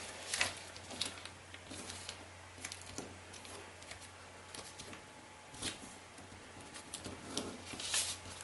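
Duo-colour kami origami paper being folded and creased by hand: scattered soft rustles and crisp ticks as the sheet is handled and pressed, a few louder ones about half a second in and near the end. A faint low steady hum runs underneath.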